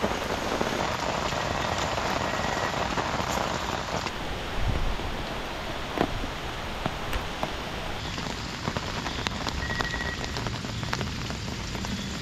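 Steady rain falling on a tent, with scattered sharper drop clicks and a single louder knock about six seconds in.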